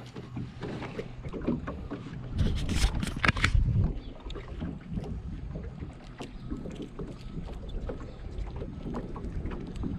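Wind buffeting the microphone over water noise, a steady low rumble, with a louder burst of sharp knocks and splashy noise from about two and a half to four seconds in.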